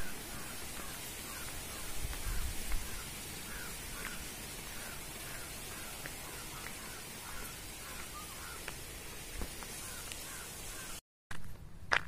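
Short chirping animal calls repeating a few times a second over faint outdoor background, cut off abruptly near the end.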